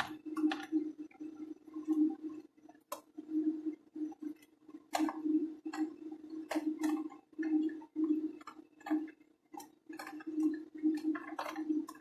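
Scattered sharp clicks and clinks of die-cast metal toy cars and tools being handled in tins of caustic soda paint stripper, over a steady pulsing hum.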